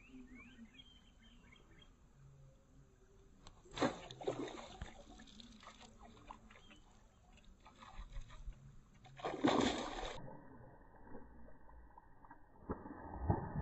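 A hooked red-bellied pacu splashing and thrashing at the water surface as it is fought on a fishing rod and pulled out, with a sharp splash about four seconds in and a bigger, longer one about ten seconds in.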